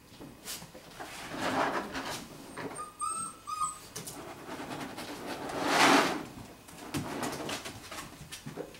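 Five-week-old golden retriever puppies moving about on plastic play equipment and a rubber mat: scuffling and knocking, with a longer, louder scuffle about six seconds in. A brief high whine from a puppy about three seconds in.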